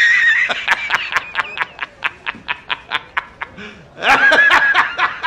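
A man laughing hard, a high-pitched laugh in quick, even pulses, about five a second. A second loud outburst comes about four seconds in.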